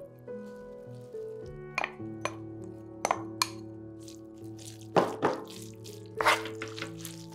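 A spatula stirring and tossing noodles in a nonstick pan: a series of short scrapes and knocks, more frequent and louder in the second half, over soft background music with long held notes.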